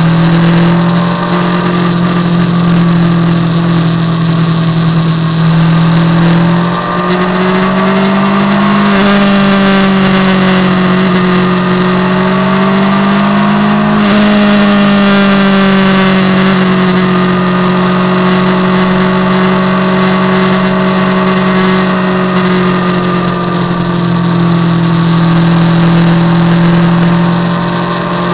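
Motorcycle engine running under way, its note climbing in two steps as the throttle is opened, then holding steady at cruising speed.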